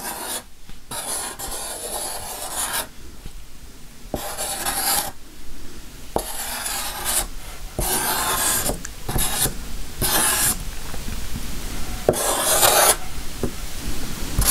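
Scratchy rubbing in about eight separate strokes, each up to a second or so long with short gaps between, made while acrylic paint is being worked onto the tray.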